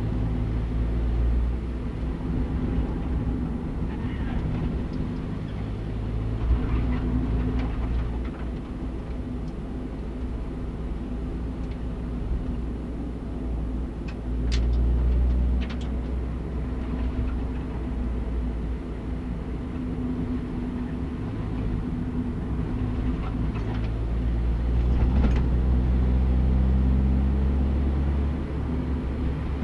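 Honda Civic Type R EP3's 2.0-litre four-cylinder engine heard from inside the cabin while lapping a circuit, its revs rising and falling through the corners, with a few sharp clicks about halfway through.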